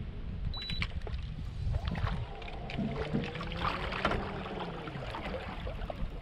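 Water lapping and sloshing against the hull of a small aluminum jon boat, with a steady low wind rumble on a GoPro microphone and scattered light clicks, busiest around the middle.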